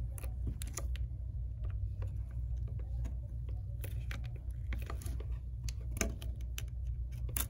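Thin metal pry tool scraping and clicking at the edge of an iPhone XS, slicing through the adhesive tape that seals the screen to the frame: a string of small irregular clicks and scrapes over a steady low hum.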